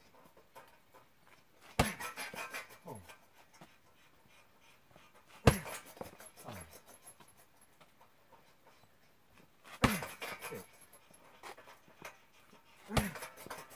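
Strikes landing on a heavy punching bag: four sharp thuds a few seconds apart, each followed by a short sound that falls in pitch.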